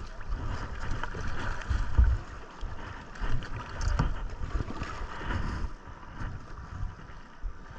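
River water rushing, with wind buffeting the microphone and a few knocks, the loudest about two seconds in.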